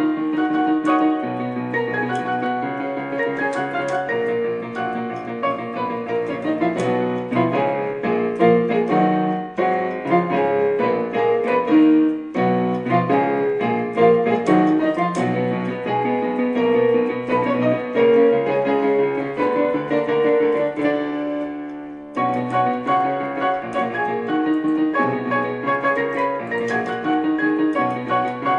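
Electric keyboard playing a two-handed arrangement of an upbeat pop theme, with melody and chords going on without a break. The sound dies away briefly about twenty-two seconds in, then the playing resumes.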